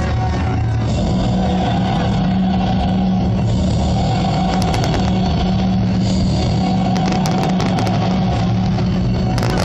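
Music with long held low notes, steady throughout; near the end a run of sharp crackles comes in over it.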